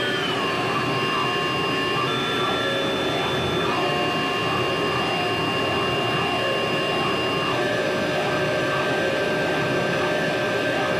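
Amplified noise music: a dense, steady wall of hiss and drone with several held whistling tones on top. The tones slide down briefly at the start, then jump to new pitches every few seconds.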